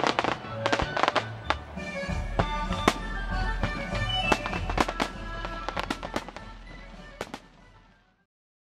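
Fireworks bursting in many sharp, irregular bangs over background music with sustained tones and a low bass note; everything fades out near the end.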